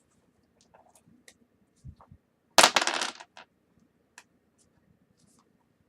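Dice clattering and rattling across a tabletop in one sudden burst about two and a half seconds in. A few faint clicks and a soft low thump come before it.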